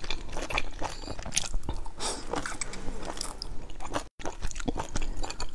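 A person biting into and chewing food, a dense run of short clicking and crackling mouth sounds. The sound drops out for an instant about four seconds in.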